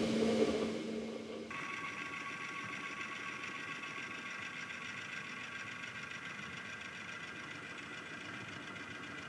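Milling machine's electric head-lift motor running steadily as it drives the head down the column. A brief lower hum is followed, about a second and a half in, by a steady whine with several high tones.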